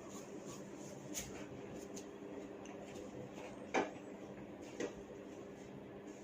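Neck joints cracking under a massage manipulation: a faint click about a second in, then a loud sharp crack and a second crack about a second later.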